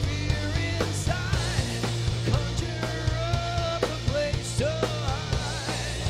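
Groove metal band playing live: electric guitars with bending, wavering notes over bass and steady drum hits.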